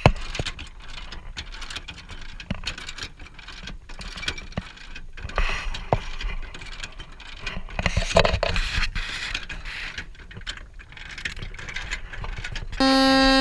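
Manual anchor windlass worked by a lever handle: irregular ratchet clicks and metal clanks, hauling in the anchor. Near the end a loud, steady, multi-note tone suddenly starts.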